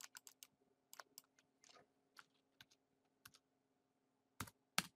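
Computer keyboard keys tapped in scattered, irregular strokes as a name is retyped, with two louder key strikes near the end.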